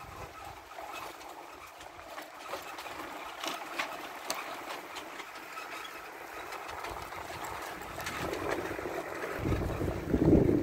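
Vehicle travelling along a mountain road: a steady rushing noise with scattered rattles and clicks, and a deep rumble of wind buffeting the microphone that builds near the end.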